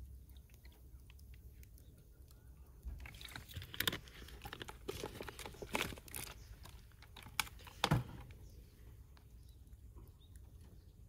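Rustling with a string of small clicks and knocks, busiest from about three to eight seconds in, with two sharper knocks, one near the middle and one near the end of that stretch.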